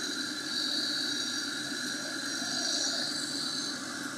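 A machine's engine running steadily under a constant high hiss.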